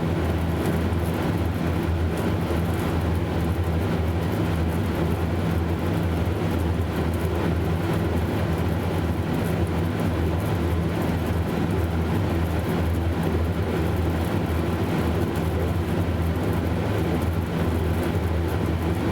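Beer refrigerator running, a steady low hum from its cooling machinery and fan with an even rush of air over it.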